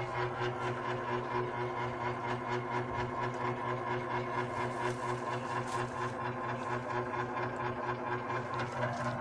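Electric fan running: a steady motor hum with a fast, even pulsing.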